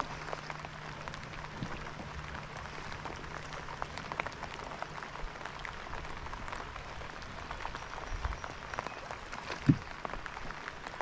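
Rain falling on the river and the canoe: a steady hiss full of tiny drop ticks. A faint low hum dies away about two seconds in, and a single low thump sounds near the end.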